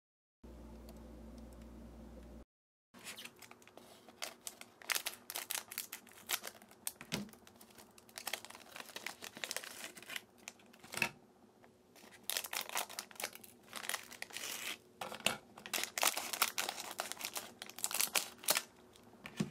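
Foil and plastic snack wrappers crinkling and tearing as they are handled and opened, with scissors cutting through a plastic wrapper near the end. A low steady hum runs for about two seconds at the start.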